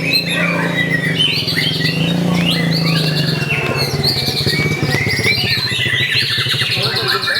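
White-rumped shama (murai batu) in full song: a continuous, varied run of whistles, chirps and rapid trills.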